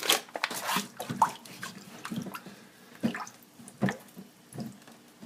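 Hands moving plastic-wrapped frozen salmon fillets in a sink of water: a few irregular splashes and drips, fading toward the end.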